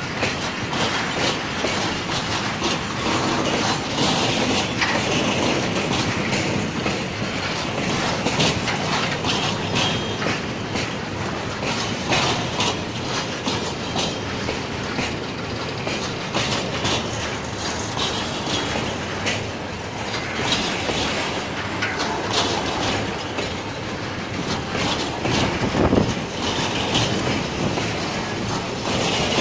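Freight train of tank wagons rolling past close by: a steady rumble of steel wheels on rail, with repeated clicks as the wheels cross rail joints. A louder knock comes near the end.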